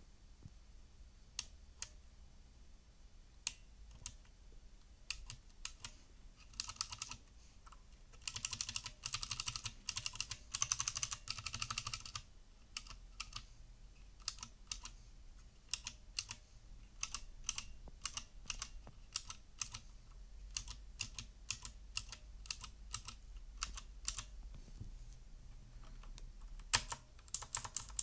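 Typing on a GAMDIAS Hermes P1 mechanical keyboard with clicky TTC Blue switches. It starts with single, widely spaced keystrokes, goes to fast continuous typing around a third of the way in, then back to scattered key presses, and speeds up again near the end.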